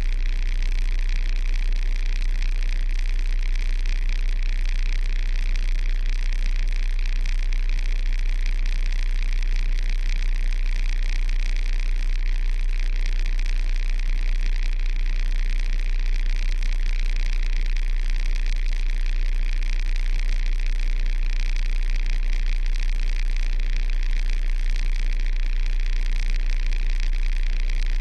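Kenworth truck's diesel engine idling steadily: an unchanging low drone with a steady hiss above it.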